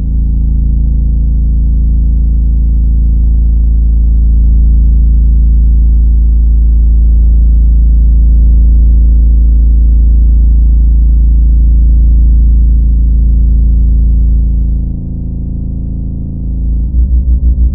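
Loud, deep electronic drone: steady low synthesizer tones with nothing in the high end. It dips briefly about 15 seconds in, then a fast pulsing of about seven beats a second starts near the end.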